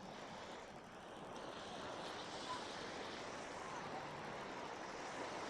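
Steady outdoor rushing noise, building slightly over the first couple of seconds, with faint distant voices.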